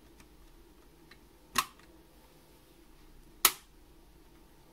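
Two short, sharp clicks of hard objects being handled, a little under two seconds apart, over quiet room tone.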